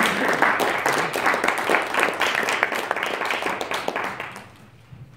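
Applause from a small audience of a few people, dense clapping that dies away about four and a half seconds in.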